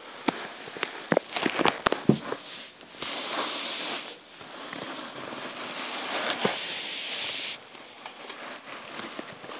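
Handling noise from a phone camera being moved low over carpet: crackling and scattered sharp clicks at first, then long stretches of hissing rustle.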